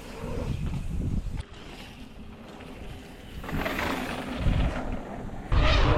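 Wind buffeting the microphone in gusts: a low rumble that dies down in the middle and swells suddenly louder near the end.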